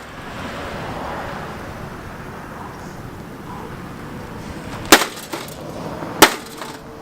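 Two sharp blows of a heavy striking tool on a Dell desktop computer's case, about five and six seconds in, after several seconds of steady low noise.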